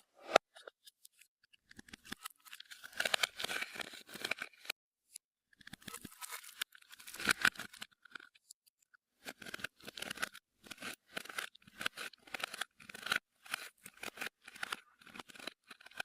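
Clear slime being mixed and kneaded by hand, giving sticky crackling and clicking. Dense clusters of crackles come in the first half, then evenly spaced squishes about twice a second.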